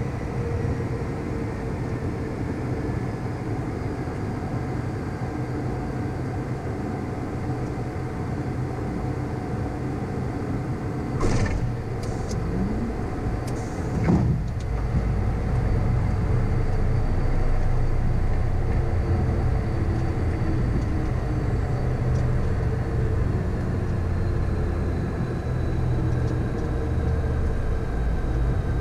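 Cockpit noise of a Beechcraft Premier 1A's twin Williams FJ44 turbofans and airflow during landing, with engine whine slowly falling in pitch as the power comes back. Two sharp knocks about eleven and fourteen seconds in come as the wheels touch down. After that there is a louder rumble of the wheels rolling on the runway as the jet slows.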